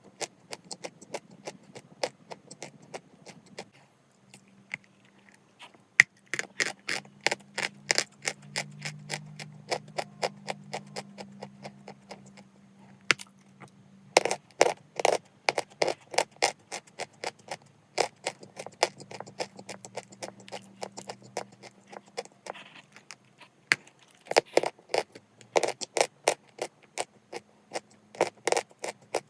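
Chalk crunching as it is bitten and chewed, with many crisp cracks in quick, irregular runs over a faint low hum.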